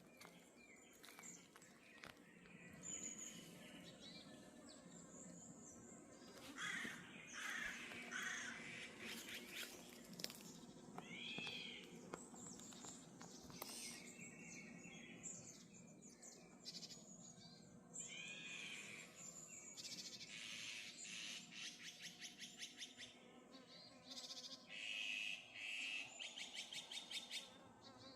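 Several wild birds calling and chirping in the morning: short arched calls that recur every several seconds, mixed with fast rattling series of notes, loudest in the second half.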